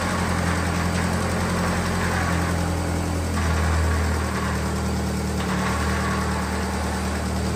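VW Lupo's 1.0-litre MPI four-cylinder petrol engine idling steadily, just after its first start since a new clutch was fitted and the gearbox refitted.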